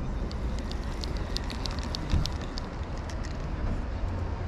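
Spinning reel being cranked to retrieve a lure, giving a run of light, irregular clicks for about three seconds over a low steady background rumble.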